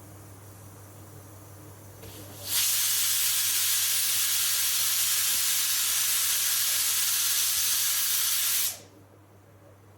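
Pressure cooker letting off steam through its whistle valve: a loud, steady hiss that starts about two and a half seconds in and cuts off suddenly about six seconds later.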